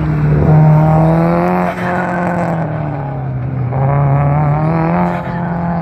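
Subaru Impreza WRX's turbocharged flat-four engine revving hard on an autocross run, its pitch climbing and dropping several times as the driver gets on and off the throttle through the cones.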